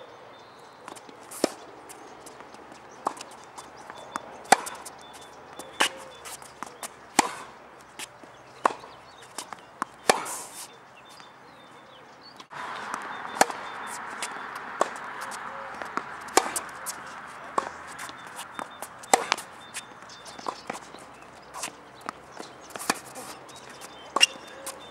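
Tennis rally on a hard court: sharp racket strikes on the ball about every one and a half seconds, with smaller ball bounces between them. About halfway through, a steady background hiss sets in suddenly.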